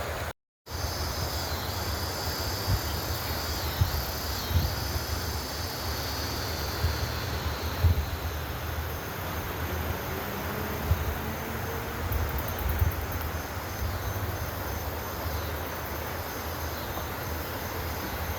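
Outdoor ambience: insects keep up a steady high-pitched drone, strongest through the first half, over a low wind rumble on the microphone, with a few short bumps.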